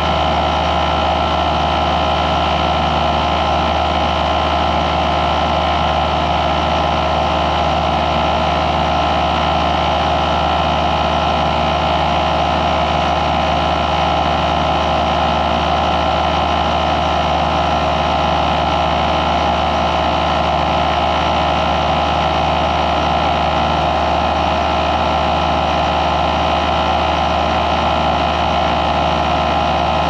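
Rooftop package air-conditioning unit running steadily: a continuous hum of the condenser fan and compressor, with air blowing through the condenser coil. The unit, just repaired, is running normally and cooling well.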